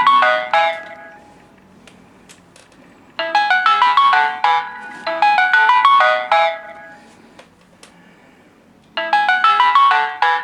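Samsung Galaxy phone ringtone: a bright, chiming melody of quick notes played in repeating phrases, with pauses of about two seconds between phrases.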